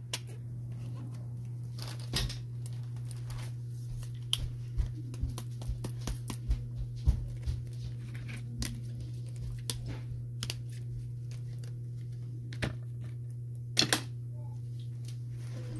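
Scattered small clicks, taps and rustles of handling over a steady low hum, a few of the clicks sharper than the rest.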